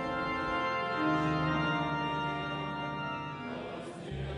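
Background music of sustained organ chords, the harmony shifting about a second in and again near the end.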